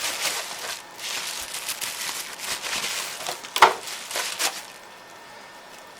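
Plastic packaging crinkling and rustling as the box contents are handled, with one sharp click about three and a half seconds in.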